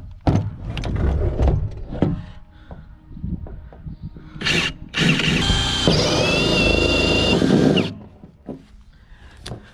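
Cordless drill turning a 1.5-inch hole saw through the wall of a blue plastic rain barrel. Rough, stop-start cutting at first, then from about five seconds in a steady run with a high whine that rises a little, stopping just before eight seconds once the saw is through.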